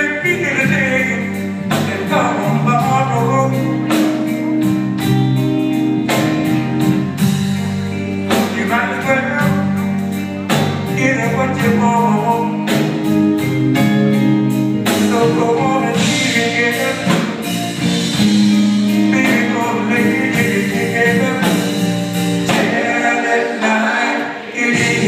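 Live band playing a slow soul ballad: a steady drum beat under bass, keyboard and guitar, with a sung lead line over it, heard through the hall's reverberation.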